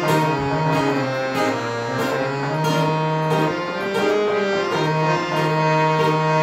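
Instrumental interlude: a harmonium plays a melody of held reedy notes over a steady low drone, with an acoustic guitar strummed along in a regular rhythm.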